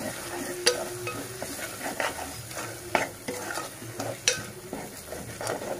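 Metal spoon stirring a spiced onion-and-tomato masala frying in oil in a pressure cooker: irregular knocks and scrapes against the pot over a light sizzle.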